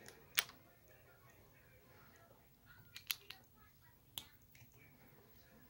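Plastic Lego bricks clicking as they are picked from a loose pile and pressed together by hand. There is a sharp click about half a second in, a quick cluster of two or three clicks around three seconds in, and one more just after four seconds.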